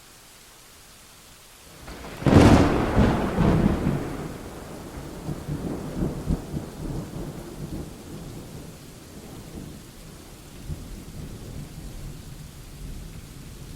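Thunderstorm: a sharp close thunderclap about two seconds in, over steady rain, then a long low rolling rumble that slowly fades.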